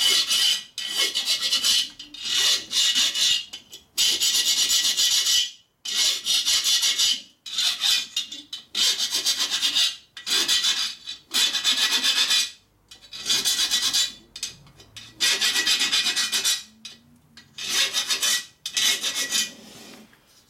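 Hand file scraping across the cooling fins of a 1942 Harley-Davidson XA 45 ci flathead cylinder in about a dozen strokes of roughly a second each, with short pauses between. The file is barely cutting: the fins' sharp edges are not coming off, and the cylinders appear to be pretty hard.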